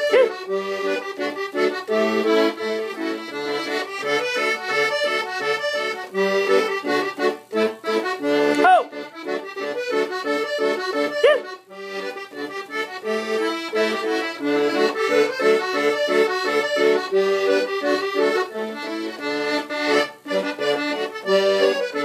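An 80-bass piano accordion playing a tune: a right-hand melody over a rhythmic bass-and-chord accompaniment. The instrument has recently been overhauled, its bellows air-tight again and its reeds working.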